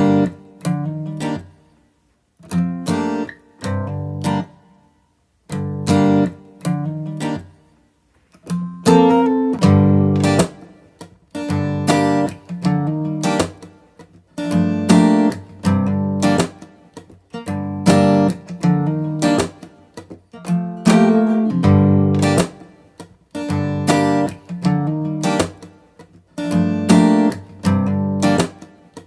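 Acoustic guitar music: chords strummed in short phrases with brief silent gaps, settling into steadier, fuller strumming about eight seconds in.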